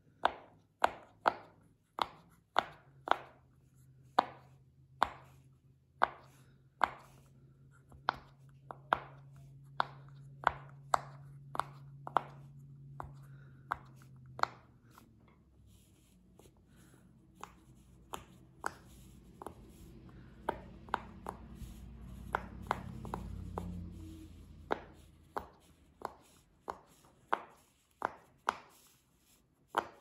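Silicone pop-it fidget toy bubbles pressed one after another with the fingers, giving sharp, irregularly spaced pops, roughly one or two a second, with a fainter run of pops midway.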